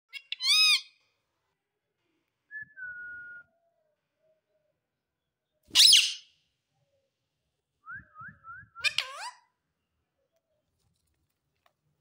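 Rose-ringed parakeet calling: a loud, harsh call near the start and another about six seconds in, a held whistle around three seconds, and a quick run of short rising whistle notes ending in a downward glide near nine seconds.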